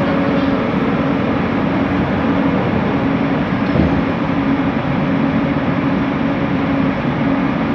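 Bombardier Innovia ART 200 train running, a steady, continuous noise from its linear induction motor drive and wheels on the rail, with a constant low hum throughout.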